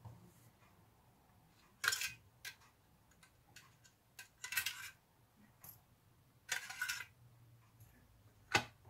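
Light metallic clinks and rattles from a small hinged metal tin as the fishing reel's small bearings are handled and tipped out onto paper towel. There are about five short bursts, the longer ones a brief rattle.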